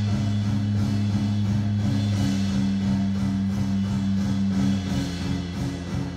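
Music with deep sustained bass notes and a steady rhythm.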